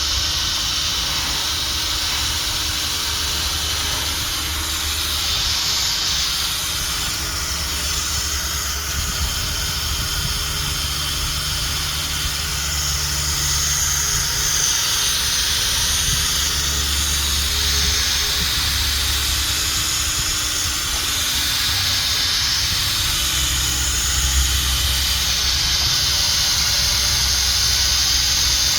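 Sanding a plastic headlight lens: a steady abrasive hiss that swells and eases every few seconds as the pad is worked over the lens.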